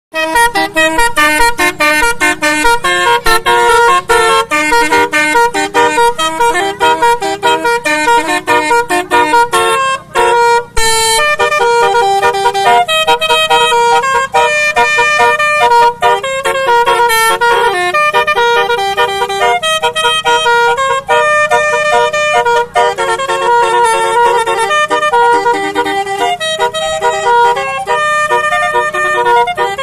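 Multi-tone 'telolet basuri' musical horn playing a tune: a fast run of short honked notes for about ten seconds, then a melody of longer held notes.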